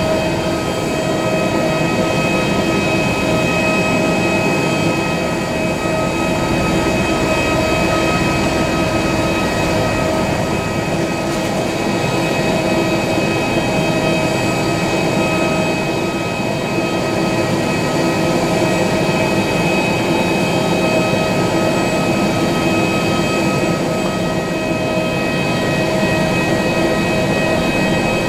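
Airbus A320neo's Pratt & Whitney PW1100G geared turbofan engines running steadily, a constant whine of several steady tones over a broad rush, with no rise or fall.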